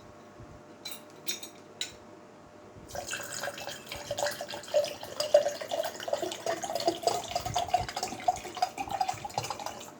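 Water being poured into the drink, starting about three seconds in, with a pitch that rises slowly as the vessel fills; a few light clicks come before it.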